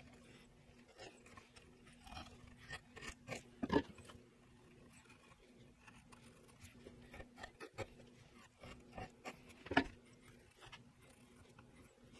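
Faint scratching and tapping of a pencil and steel dividers marking out curves on a maple board, with two sharper clicks about six seconds apart.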